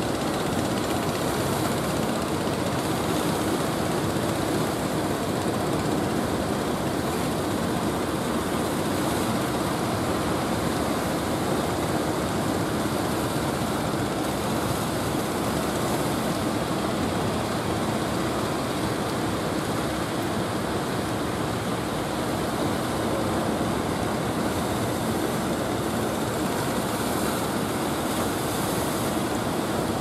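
Steady, unbroken noise of ocean surf breaking at the beach, mixed with wind.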